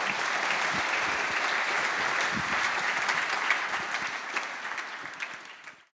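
Audience applauding, a dense patter of many hands clapping that fades over the last couple of seconds and cuts off abruptly just before the end.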